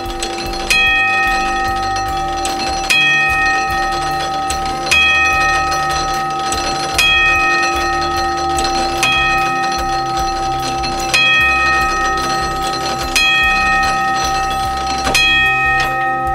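The striking work of a home-built barn clock, made from old farm-machinery gears, hammering its bell to strike the hour: eight strokes about two seconds apart, each one ringing on into the next.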